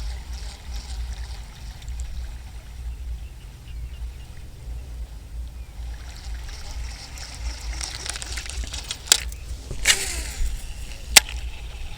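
Wind buffeting the microphone as a steady low rumble, over light water sloshing and trickling. Three sharp clicks or snaps come about nine, ten and eleven seconds in, the last the loudest.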